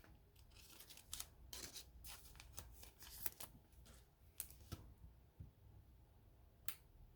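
Faint handling of trading cards: soft sliding and rustling with scattered light clicks as the cards are flipped through, then a quieter stretch and one sharper click near the end.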